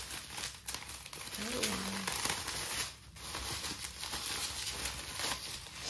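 Bubble wrap and plastic packaging crinkling and rustling as it is unwrapped by hand. A short vocal sound comes about a second and a half in.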